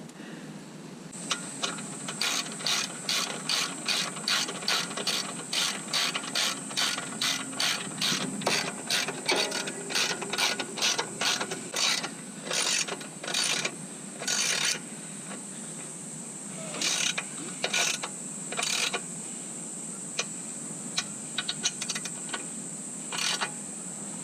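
Socket ratchet wrench clicking in quick, even back-strokes, about two a second, as bolts on a bash plate are run in or out. The strokes slow and come in scattered short bursts after about 12 seconds. A steady high-pitched tone sounds throughout.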